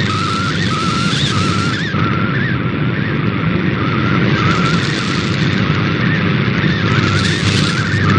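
Shortwave radio reception of a digital image being sent in MFSK picture mode: a single tone wavering around 1.3 kHz, under heavy static and local interference noise that swells and fades.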